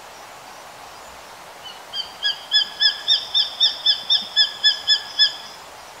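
Japanese sparrowhawk calling: a rapid series of about fourteen short, sharp whistled notes, about four a second, starting about two seconds in and ending about three and a half seconds later.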